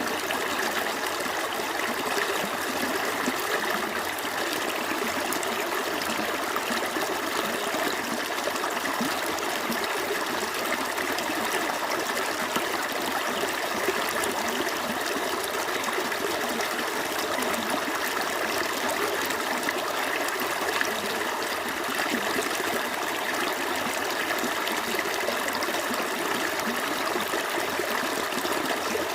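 Small stream flowing steadily, water trickling and babbling over stones.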